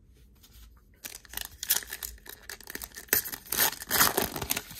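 Foil wrapper of a Panini Prizm baseball card pack being torn open and crinkled by hand: a dense, crackly rustling that starts about a second in and is loudest near the end.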